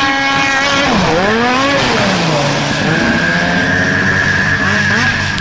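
Snowmobile engine running at high revs while skimming across open water; its pitch drops sharply about a second in and climbs back, dips once more, then holds steady with a high whine.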